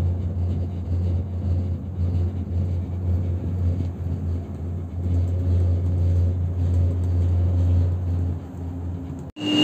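Steady low rumble of wind and motion heard from inside a moving cable-car gondola, wavering in strength. It cuts off abruptly near the end.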